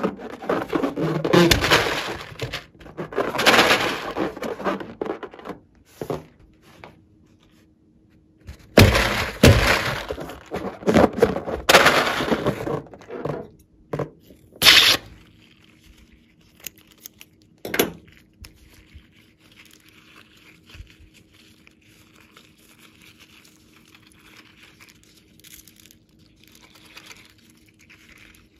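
A slime-filled rubber balloon squeezed and kneaded in the hands, the rubber rubbing and squeaking loudly, then scissors snipping the balloon open with a sharp cut about halfway through. After that, quieter crinkling and rubbing as the limp, slime-coated balloon skin is pulled apart.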